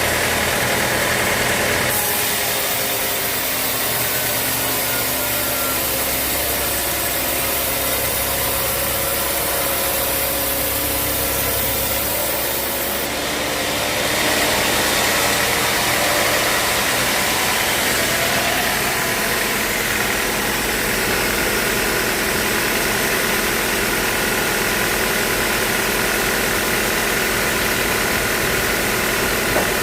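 Band sawmill machinery running steadily. A bright hiss joins about two seconds in and drops away around thirteen seconds.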